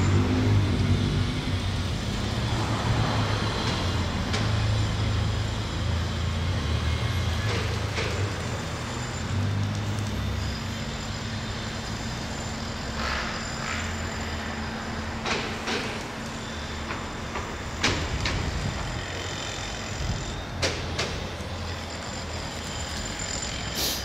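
A large engine running at low revs, its low hum wavering over the first ten seconds and then settling steadier and quieter, with a few sharp clicks.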